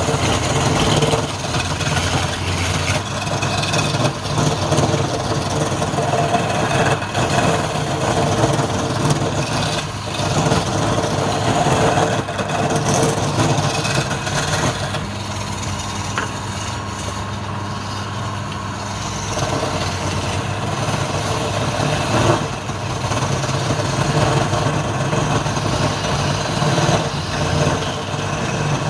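Wood lathe's electric motor running steadily while a hand-held chisel cuts the spinning wood blank, with a rough scraping hiss of shavings coming off. The cutting noise eases for a few seconds past the middle.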